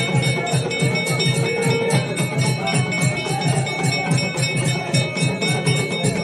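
Temple bells ringing continuously over a fast, steady drumbeat of about five strokes a second, typical of bells and drum played at an evening aarti.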